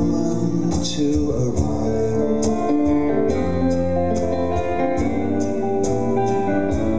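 A live band playing a slow song, led by violin and keyboard, with a light percussion beat of about two strokes a second.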